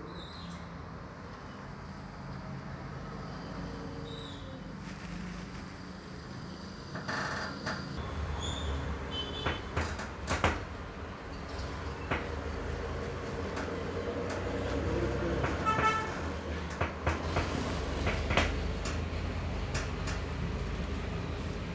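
Background noise: a steady low rumble with scattered clicks and knocks, and a brief pitched toot, like a vehicle horn, about 16 seconds in.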